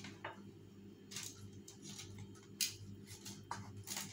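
Aluminium foil crinkling and a utensil scraping on a foil-lined baking tray as crumb-crusted baked chicken pieces are lifted off it: a string of short, crisp rustles and scrapes at irregular intervals, over a steady low hum.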